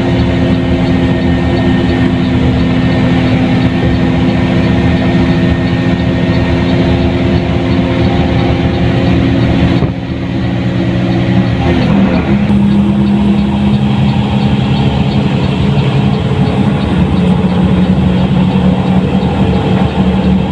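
Mercedes-Benz OH 1623 bus's diesel engine running under way with a steady note. About twelve seconds in, the engine note drops to a lower pitch and holds there, just after a brief dip in loudness.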